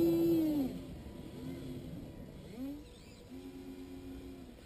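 Electric whine of the RC excavator's Actuonix linear servos driving the arm and bucket in stop-start runs: one long steady run that winds down about half a second in, then several shorter, quieter runs, one rising in pitch.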